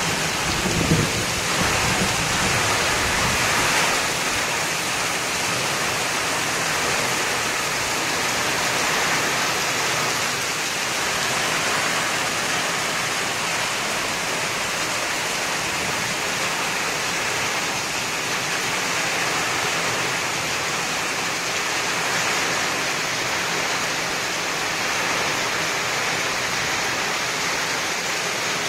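Heavy rain falling in a steady hiss, with muddy runoff water rushing over a gravel street. A low rumble sounds in the first few seconds.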